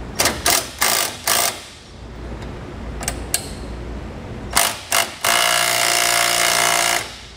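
Milwaukee cordless impact driver with a socket, tightening down a bolt. It runs in several short bursts in the first second and a half and two more about four and a half seconds in, then in a steady run of nearly two seconds that cuts off suddenly.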